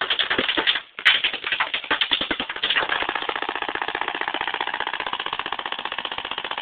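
Proto SLG paintball marker firing in rapid-fire ramping mode, set to about 15 balls a second: a few uneven shots at first, then from about three seconds in an unbroken, even stream of shots.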